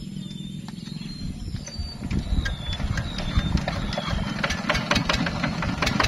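Kubota DC70 Plus combine harvester's diesel engine running steadily, with short falling bird chirps about once a second. From about two seconds in, a dense patter of sharp clicks builds up over the engine.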